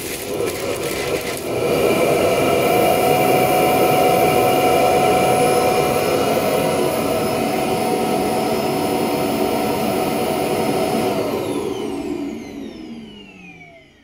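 Roidmi Eve Plus self-emptying dock's suction motor spinning up about a second and a half in, running loud and steady with a whine, then winding down with a falling whine over the last few seconds. It is sucking the robot vacuum's dustbin empty into the station.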